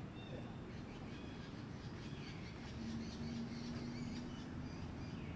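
Rapid, high-pitched chirping animal calls that grow busier after about two seconds, with a low steady hum in the middle.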